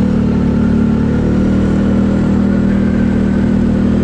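ATV engine running at a steady pitch while riding, the note shifting slightly about a second in.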